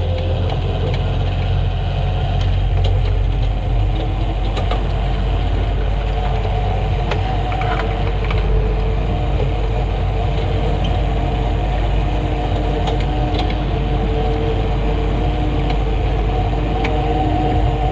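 Kubota SVL90-2 compact track loader's four-cylinder diesel engine running steadily under load while it drives a Harley power rake through topsoil, with a few faint clicks.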